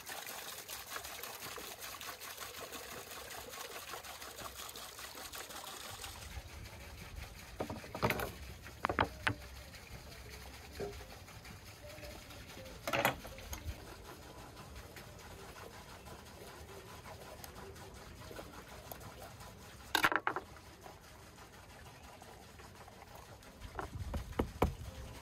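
Water splashing from a spout into a stone basin as hands are rubbed and rinsed under it, stopping about six seconds in. Then scattered single knocks of vegetables and a knife on a wooden cutting board, ending in a quick run of knife cuts through a bell pepper.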